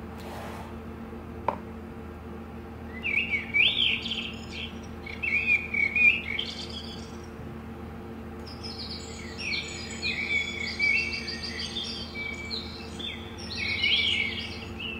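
Recorded birdsong chirping and tweeting from a children's sound book's small speaker, set off by pressing its sound buttons. There is a single click about a second and a half in, then two stretches of chirping, the second longer and busier.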